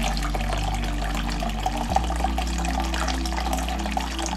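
Liquid pouring in a steady stream from a tipped glass jar through a perforated plastic draining lid into a pot of liquid.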